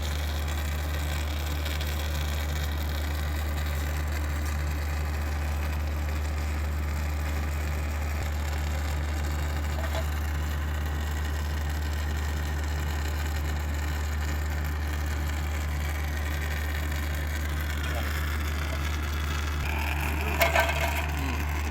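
A steady low machine hum, with a few short knocks and clatter near the end.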